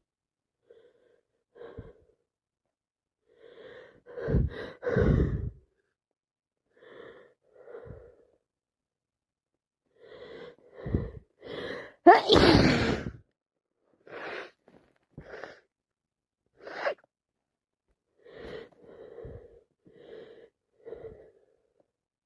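Repeated sneezing from a nose blocked with a cold and sinusitis, with short gasping breaths between. Two strong sneezes come close together about four seconds in, and the loudest, rising in pitch before it breaks, about twelve seconds in.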